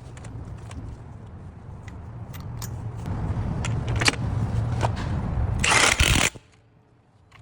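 Cordless impact wrench tightening the lug nuts on a Range Rover wheel, with a low rumble building under scattered clicks and one loud burst from the gun about six seconds in, after which the sound cuts off suddenly.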